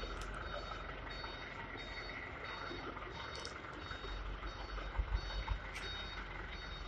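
Faint high electronic beep repeating about every 0.7 seconds over a low steady hum, with a few soft knocks about five seconds in.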